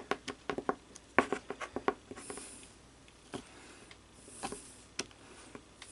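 Small hand tools clicking and tapping against a musket lock: a quick run of sharp clicks for about two seconds, then a few scattered ones with a couple of soft scrapes.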